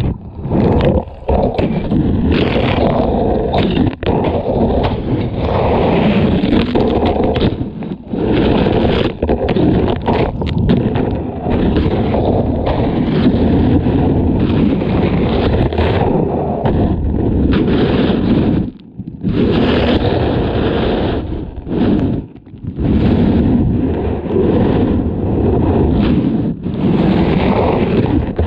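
Loud, rough rushing and churning of surf, heard through a GoPro Hero7 tumbling in the water, with scraping and knocking as it rolls against rocks; the noise drops away briefly a few times.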